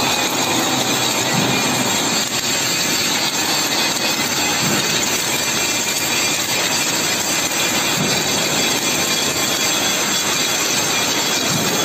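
Steady, even running noise of an automatic submerged arc welding carriage laying a fillet weld along a T-shaped steel girder, with flux feeding over the joint.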